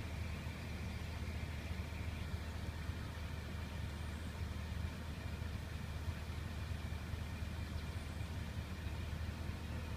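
Steady low hum of an idling engine, with two faint high chirps about four and eight seconds in.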